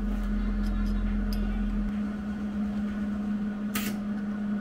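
Welding machine switched on and humming steadily at idle, its cooling fan running. A brief scratchy noise comes near the end.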